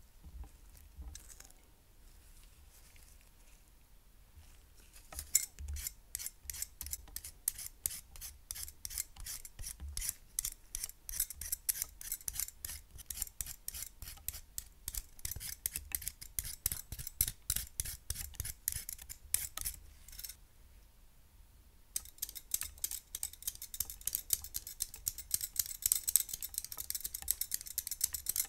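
Close-miked quick scraping strokes, several a second, of sweet potato being shaved into thin strips. After a short pause, a denser and faster rasping as cheese is shaved into flakes.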